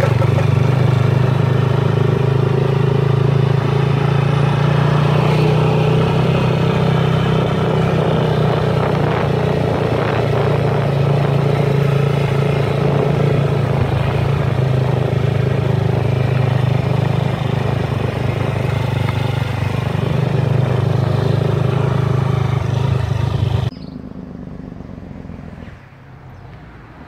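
Motorcycle engine running at a steady pace under way, with wind and road noise over it. Near the end the sound stops suddenly, leaving a much quieter background.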